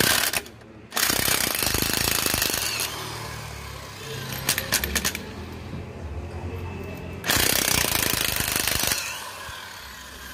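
Corded electric impact wrench (DCA APB20C) hammering on a car's wheel nuts to loosen them. It runs in bursts: a short one at the start, a long one about a second in, a few quick stutters near the middle, and another long one about seven seconds in.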